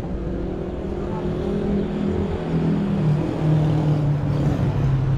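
A motor vehicle's engine running on the street, its tone dropping a little in pitch about two to three seconds in.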